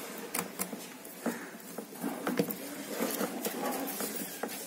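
Paper stick puppets being handled on a small puppet stage: scattered light taps and rustles.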